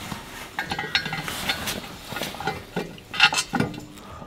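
Metal clinking and clanking as a car's exhaust pipe is worked into place on its underside, in irregular clusters of sharp ringing knocks, loudest about three seconds in.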